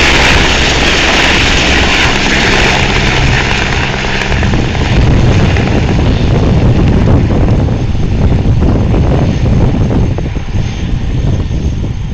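Eurocopter Squirrel helicopter lifting off and departing: a loud turbine whine over the rotor beat. About four seconds in this gives way to a deeper rumble, which fades near the end as the helicopter flies off.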